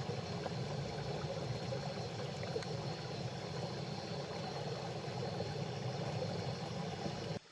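Small river flowing, a steady rushing of water that starts and stops abruptly.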